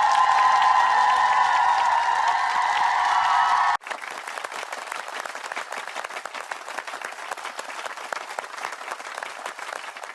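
Crowd applause, with a loud held din over it for the first four seconds, then an abrupt cut to quieter clapping that thins out near the end.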